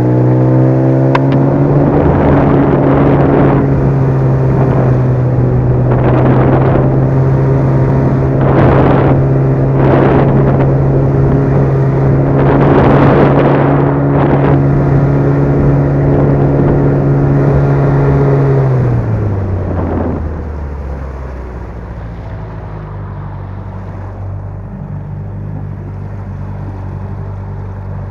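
Small outboard motor driving an inflatable boat, running steadily at high throttle with rushing bursts over it, then throttled back about two-thirds of the way through to a lower, quieter run.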